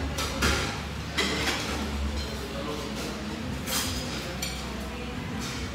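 Restaurant dining-room ambience: a low steady hum under background voices, with a few short clinks of spoons and forks against bowls and plates.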